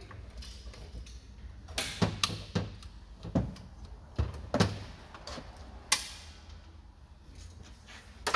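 Sharp metallic knocks and clinks, about eight between two and six seconds in, from parts being handled and fitted inside the aluminium case of a JF506E automatic transmission on the bench.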